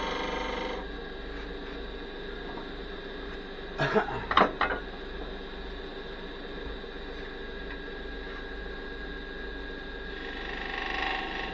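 Wood lathe running steadily with a cherry blank spinning. A gouge's cutting hiss stops under a second in and comes back near the end. About four seconds in there is a short clatter of several sharp metallic knocks.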